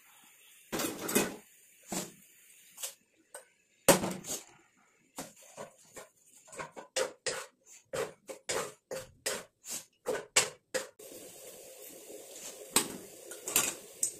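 Spatula scraping and knocking against a nonstick wok while leafy greens and fish are tossed in a stir-fry. There are a few separate strokes at first, then a quick run of about two strokes a second, then a steadier sizzle with a couple of last strokes near the end.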